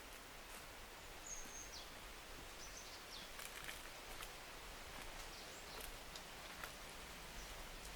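Faint autumn forest ambience: a steady soft hiss with scattered light ticks and a brief high bird chirp about a second in.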